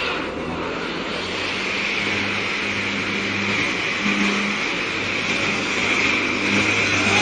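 Rushing brown floodwater over a cattle truck's diesel engine running steadily as the loaded truck wades through the river current.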